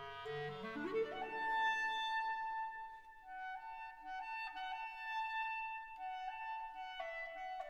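Background instrumental music: a slow melody of long held notes, with a quick rising run of notes about a second in.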